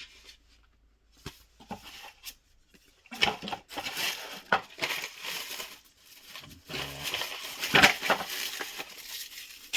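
Packaging being handled and opened by hand: irregular crinkling and rustling that starts about three seconds in and is loudest near the end.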